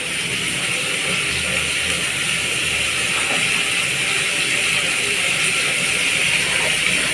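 Food frying in a pan on the stove: a steady crackling sizzle.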